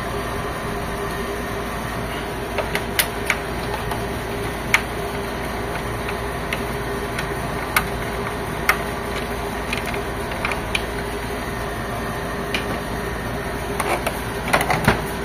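Scattered sharp clicks and knocks from handling and dismantling an HP Officejet 7612 inkjet printer, a few seconds apart with a small flurry near the end, over a steady background hum.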